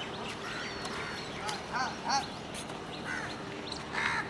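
Short, arching bird calls repeated many times, several in quick runs, over a steady background.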